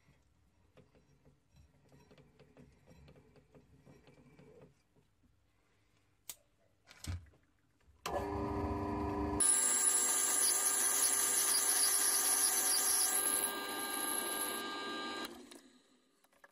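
Small handling clicks, then an antique metal lathe starts up with a low hum about eight seconds in. A second and a half later a loud, high ringing joins it as the cutting tool turns the spinning brass tube. This lasts about six seconds, then stops, and the lathe runs down.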